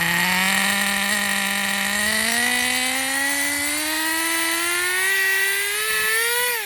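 Team Associated Nitro TC3 RC car's small nitro engine revving higher as the car accelerates, its pitch climbing smoothly with no step from a gear change, then dropping as it comes off throttle at the end. The two-speed transmission does not shift, and the owner suspects it is stuck in second gear.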